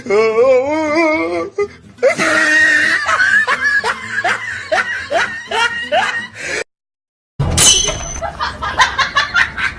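Loud laughter: a wavering cry first, then a run of short 'ha' notes, each falling in pitch, about two a second. It cuts off suddenly near seven seconds, and after a brief silence a noisy stretch starts with a short high tone.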